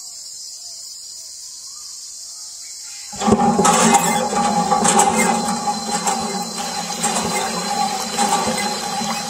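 A miniature electric water pump feeding a toy hand pump starts suddenly about three seconds in and runs with a steady hum, while water gushes from its small tube and splashes onto sand.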